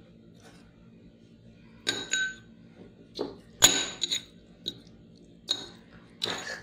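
Steel spoon clinking against a plate as it mixes syrup-coated candied pumpkin cubes. The first two seconds are quiet, then comes a string of sharp clinks, the loudest near the middle.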